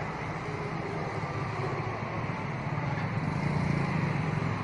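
Steady low hum of an idling vehicle engine, swelling slightly about three and a half seconds in.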